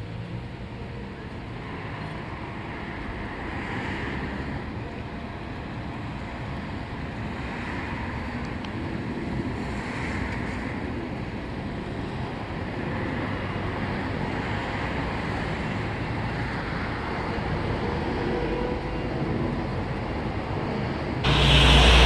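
Outdoor ambience of steady wind and traffic noise, building slowly, with faint swells of a higher tone every few seconds. A louder rush of noise cuts in near the end.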